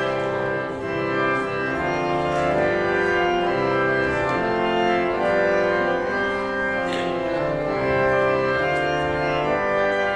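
Church organ playing sustained chords that change every second or so: the postlude at the close of the service.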